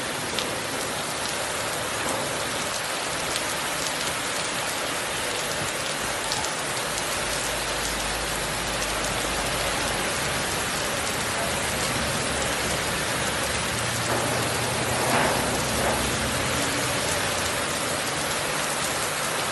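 Heavy tropical-storm rain pouring down steadily, with a brief louder swell about three-quarters of the way through.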